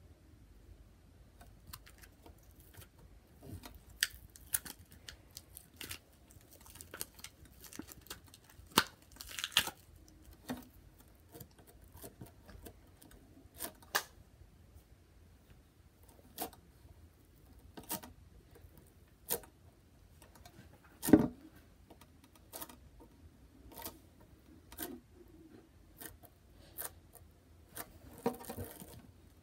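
Floam, slime packed with tiny foam beads, squeezed, pulled apart and pressed by hand: irregular crunchy crackles and sharp pops, with one louder pop about two-thirds of the way through.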